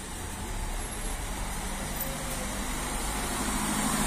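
A car approaching on wet asphalt, its engine hum and the hiss of its tyres growing steadily louder.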